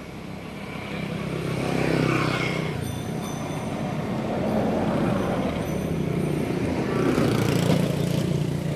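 A motor vehicle's engine running as it passes, with a steady low hum that swells about two seconds in and again near the end.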